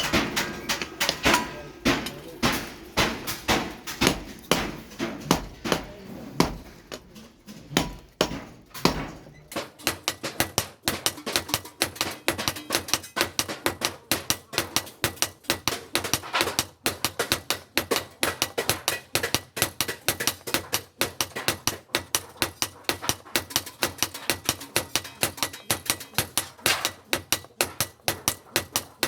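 Steady hammer blows on steel during axe forging: sharp metallic strikes at about two to three a second, changing about ten seconds in to a quicker run of about three to four a second.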